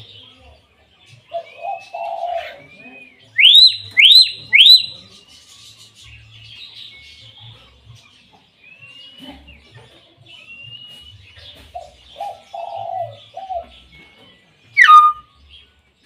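Hill myna calling: three loud, sharply rising whistles in quick succession, lower calls before and after, and one loud falling whistle near the end.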